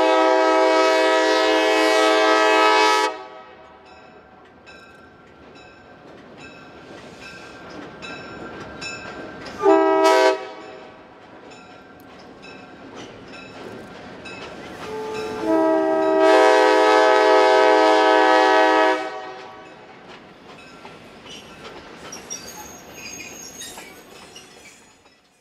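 Locomotive air horn sounding three blasts, long, short, long, over the steady rumble and wheel clatter of a passing freight train, which fades away near the end.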